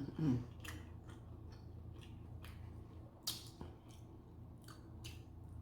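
Close-miked wet mouth sounds of someone chewing buttery seafood: scattered smacks and clicks, the loudest a little over three seconds in, over a low steady hum.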